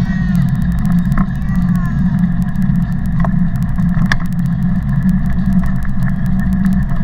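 Steady, loud low rumble of riding in the front box of a Taga cargo bike on a paved path: wind buffeting the bike-mounted microphone and the box rattling as it rolls, with a young child's brief high-pitched voice near the start.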